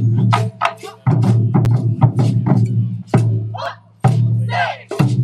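Taiko ensemble playing chu-daiko drums with bachi sticks: fast rhythmic runs of deep, ringing drum strokes mixed with sharp wooden clacks, in phrases broken by short pauses.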